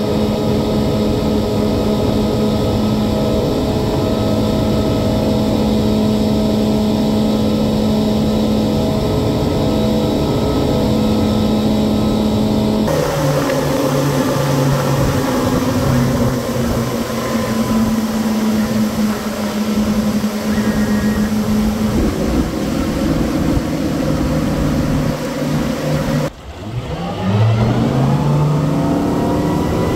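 Twin Mercury Verado 250 hp outboards running steadily at wide-open throttle, about 5,400 rpm, with wind and water rush. Near the end the engine note drops away briefly, then rises steadily in pitch as both engines rev up, pushing the boat out of the hole from low speed.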